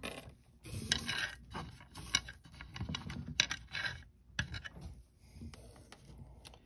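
Fingers rummaging in a small wooden box, the metal jewelry inside clicking and scraping against the wood as a piece is picked out. A dense run of light clicks and scrapes fills the first four seconds or so, then thins to a few scattered ticks.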